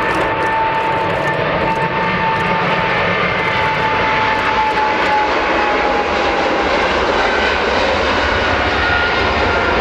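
Jet engines of a large cargo airliner passing close by: a steady loud roar with a high whine that slowly falls in pitch as it goes.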